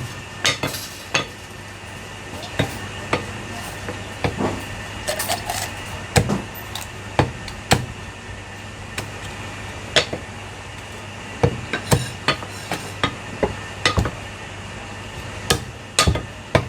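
Cleaver chopping through roast meat on a chopping board: sharp chops at irregular intervals, about one a second, some in quick runs of two or three.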